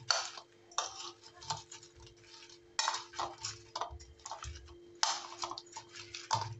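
A metal spoon tapping and scraping against a ceramic plate as crisp fried snack pieces are tossed and stirred, in irregular clinks and short scrapes. A steady low hum sits underneath.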